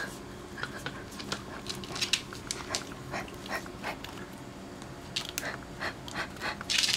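Dachshund jumping up and snapping at a toy held over it: irregular light clicks and taps, growing denser and louder near the end.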